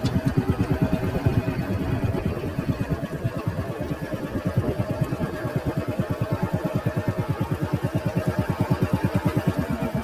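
Engine of the vehicle carrying the camera, running steadily with a rapid, even low pulsing of about ten beats a second.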